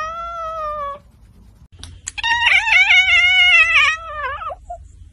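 Two domestic cats meowing, one after the other. The first meow lasts about a second and falls slightly in pitch. About two seconds in comes a longer, louder meow of nearly three seconds, wavering in pitch and dropping at the end.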